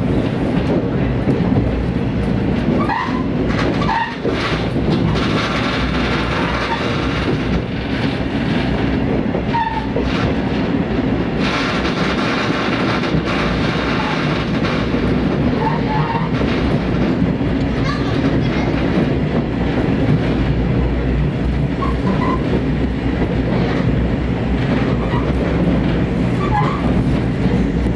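Diesel train running along the line, a steady low engine drone over wheel-and-rail noise, with brief high squeaks now and then.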